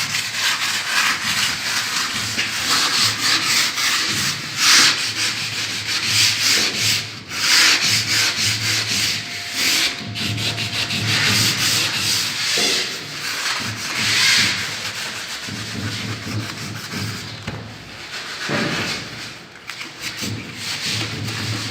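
Sandpaper rubbing back and forth over a wooden surface coated with hard sanding sealer, a continuous scratchy sanding sound that swells and eases with each stroke.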